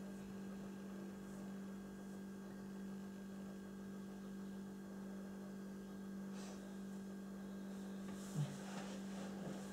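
Steady low electrical hum in a small room, with faint breaths and one brief low sound a little past eight seconds in.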